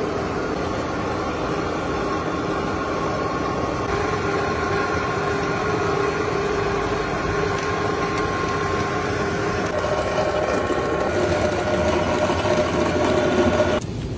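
Electric wet grinder running steadily as it grinds soaked rice and lentils into dosa batter, a machine hum with a few steady tones that cuts off abruptly near the end.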